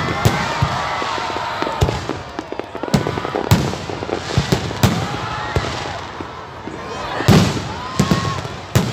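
Aerial fireworks shells bursting overhead in quick succession: a string of sharp bangs, the loudest about seven seconds in.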